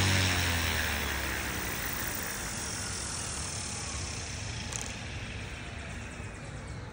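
Electric RC helicopter's motor and rotor spinning down on the ground: the steady running note cuts off and a faint whine slides slowly down in pitch as the blades coast and the sound fades.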